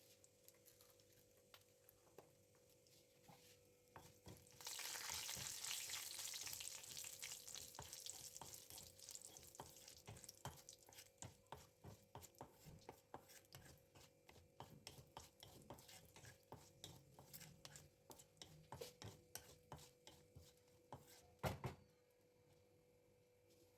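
Sizzling in hot oil in a pan, starting suddenly about five seconds in and slowly fading, while a utensil stirs with many small clicks and scrapes against the pan; a louder knock comes near the end.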